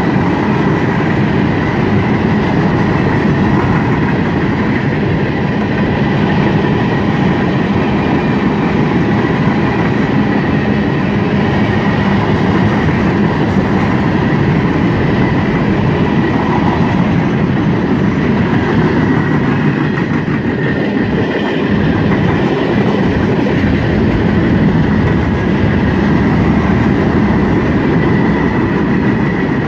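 Freight cars (tank cars, covered hoppers and gondolas) rolling past, a loud steady rumble of steel wheels on rail with a faint steady ringing tone above it.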